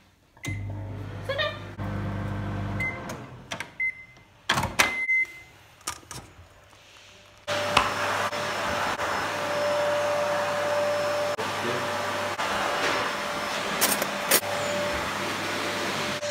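Microwave oven keypad beeping several times as its buttons are pressed, with short spells of the oven's low hum and a few knocks. About seven seconds in, the running microwave's steady whir and hum take over.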